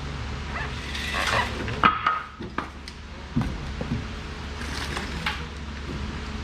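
A few sharp metal knocks and clanks with short scrapes as suspension parts and tools are worked to seat a strut in the rear hub knuckle, over a steady low hum.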